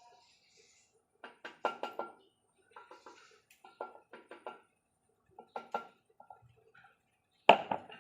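Metal engine parts clinking and tapping in short clusters of quick clicks with a brief ring, as parts are handled and set down during engine assembly; one louder knock near the end.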